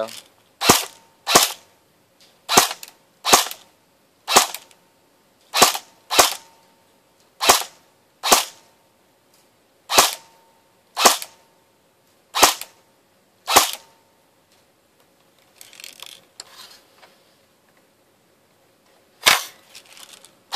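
Umarex H&K G36C airsoft electric gun (AEG) firing single shots on semi-auto, each a short sharp crack. About fourteen shots come roughly a second apart, with a pause of several seconds before one more near the end.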